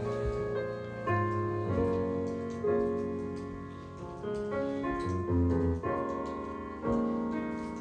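Slow background piano music, with chords struck about once a second and left to ring and fade.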